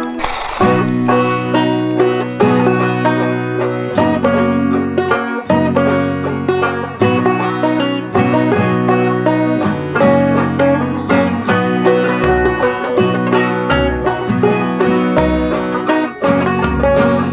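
Upbeat background music led by a plucked banjo with guitar in a bluegrass style, with a steady rhythm and a deep bass joining about twelve seconds in.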